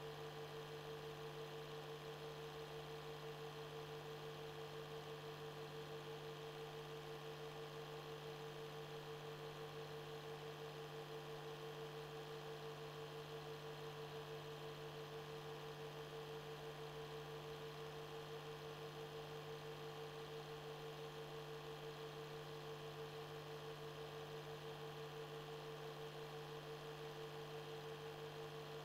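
Steady electrical hum: a constant mid-pitched tone over a lower drone, with faint hiss. This is the background noise of a silent film transfer that has no soundtrack.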